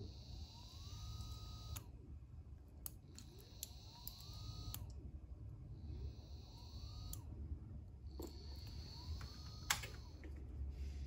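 A small 42 mm 24 V BLDC motor spins up and is cut off about four times. Each time a rising whine climbs over about a second, holds steady briefly with a faint high whine alongside, then ends with a sharp click.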